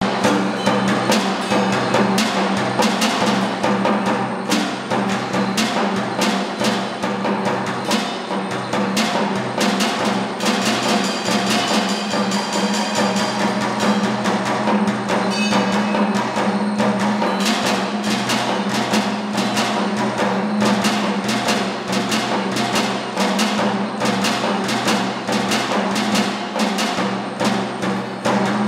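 Robotic percussion installation built from drums, cymbal, pots, bowls and other found objects, its MIDI-driven beaters striking a busy, irregular mix of drum hits and woody knocks over a steady low hum. It starts abruptly.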